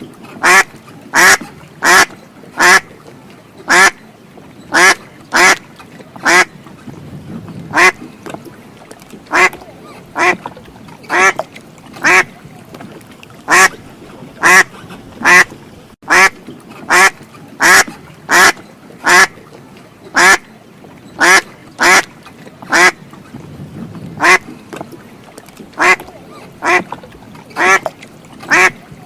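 Duck quacking over and over, single loud quacks about once a second, now and then two in quick succession.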